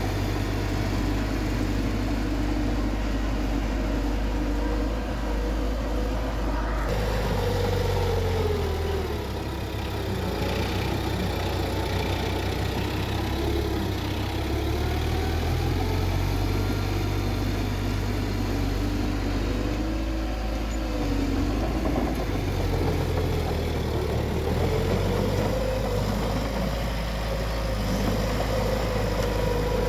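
Bulldozer's diesel engine working under load, its pitch rising and falling again and again as the revs change, with more clatter and rumble from about seven seconds in.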